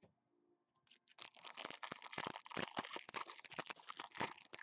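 Shiny foil wrapper of a football trading-card pack being torn open and crinkled by hand: a dense run of crackling and tearing that starts about a second in.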